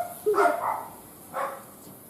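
A dog barking repeatedly, short barks about a second apart.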